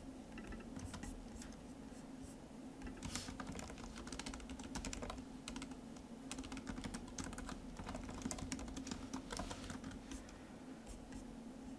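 Typing on a computer keyboard: irregular runs of quick key clicks with short pauses between them, over a faint steady hum.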